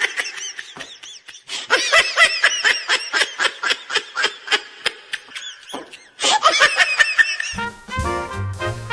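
High-pitched giggling laughter in quick rapid pulses, with a short break about six seconds in. Near the end it gives way to swing-style jazz music with brass.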